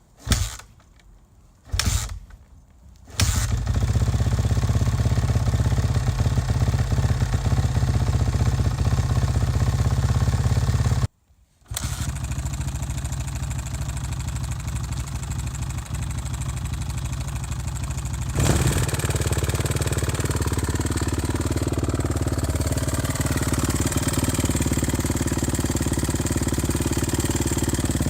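Cold start of a 2006 Suzuki RM-Z450's single-cylinder four-stroke engine: two short coughs, then it catches about three seconds in and runs steadily. Its cam timing has just been corrected, but the owner believes the stock cam chain tensioner still leaves the chain loose and noisy.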